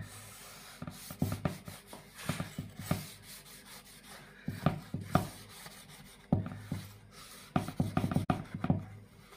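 A long knife sawing back and forth through a baked sponge cake to slice it into layers, making irregular rasping strokes of the blade through the crumb.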